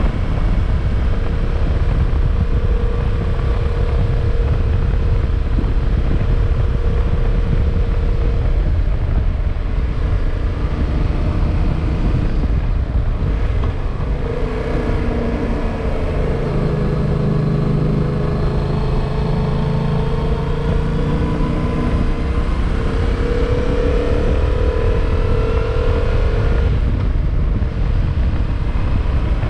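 Motorcycle engine pulling uphill under heavy wind buffeting on the microphone. About halfway through, the engine note grows stronger and climbs in pitch for several seconds, then drops away near the end.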